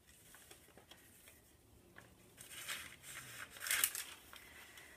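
Paper pages of a handmade junk journal being turned by hand: two brief rustles of paper, about two and a half and about three and a half seconds in.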